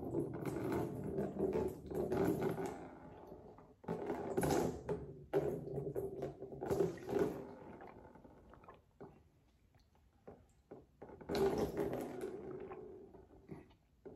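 A man gurgling and spluttering with a mouthful of hot chocolate poured from a mug, some of it spilling into a plastic tub held under his chin. It comes in four bouts of a few seconds each.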